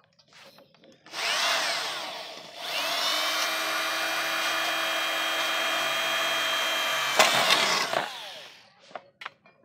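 Corded electric drill boring holes through a thin sheet-metal amplifier chassis. There is a short run about a second in, then a longer steady run of about five seconds that spins up and winds down near the end, followed by a few small clicks.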